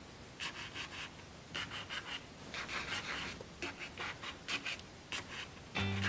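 Folded-paper origami button toys pressed down by fingertips, the inner paper cube sliding into its box with short crackly scraping strokes, in quick clusters about once a second. A guitar tune starts near the end.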